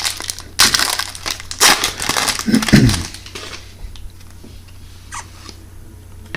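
Trading-card pack wrapper crinkling and crumpling as it is handled and torn open, in rough bursts over the first three seconds or so, then a few faint clicks of cards being handled.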